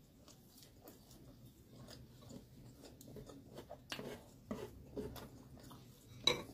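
Close-miked chewing of a mouthful of grilled sausage with soft, wet mouth sounds. Small clicks and knocks of chopsticks against the plate are mixed in, with one sharp click near the end as the loudest sound.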